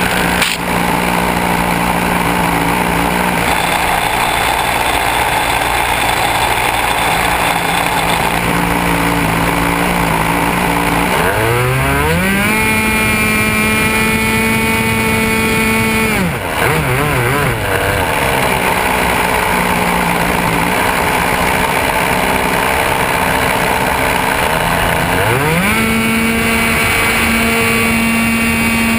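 Model airplane's motor running at idle, then throttled up with a rising pitch about 11 seconds in and held high. It drops back to idle about 16 seconds in, then runs up again about 25 seconds in for the takeoff.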